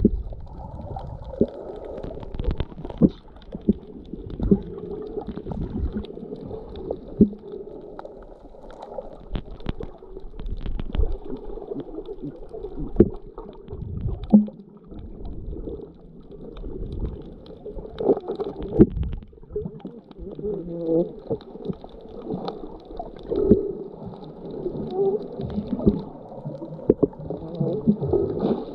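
Muffled underwater sound picked up by a submerged camera: water gurgling and sloshing with irregular knocks.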